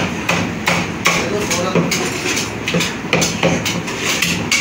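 Two heavy meat cleavers chopping mutton and bone on wooden chopping blocks: sharp, irregular chops, about two to three a second, from two butchers working at once.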